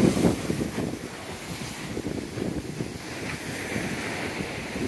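Wind buffeting the microphone over the steady wash of surf breaking on a sandy beach, a little louder in the first moment.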